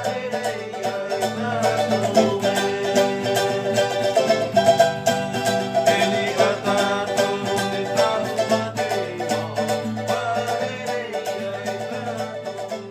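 Background instrumental music of quick plucked-string notes, starting to fade out near the end.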